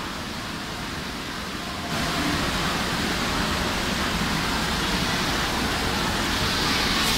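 Steady rushing of falling fountain water, getting louder about two seconds in.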